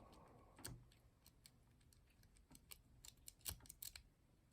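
Faint metallic clicks and ticks of a double-peak rake being rocked in a lock's keyway, with a few sharper clicks just under a second in and again near the end.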